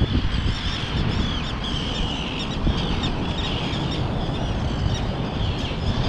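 A nesting seabird colony calling, with many short, high calls overlapping over and over, over a low rumble of wind on the microphone. These are the alarm calls of birds defending their nests and diving at an intruder.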